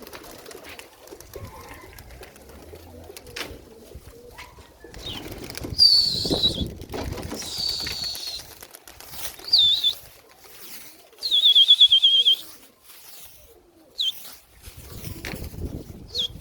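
Domestic pigeons' wings flapping as the flock flies, with six short high whistled calls, most falling in pitch and one longer and trilling, about six seconds from the start onward.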